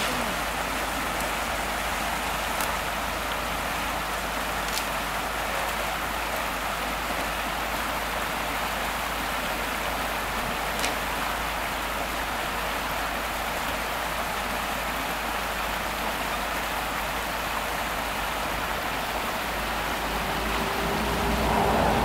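Small rocky beck rushing over stones in a steady wash of water noise, with a few faint clicks. Near the end a tractor engine's hum comes in and grows louder.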